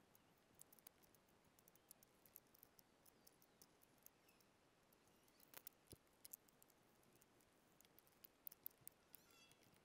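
Near silence with faint, scattered light clicks and taps: hand tools being picked up and set down as a workbench is cleared.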